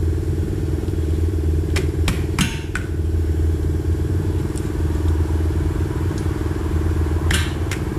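A steady low machine drone runs throughout, with short sharp metal clicks from the brake caliper being handled and seated over the new pads, about four around two seconds in and a couple more near the end.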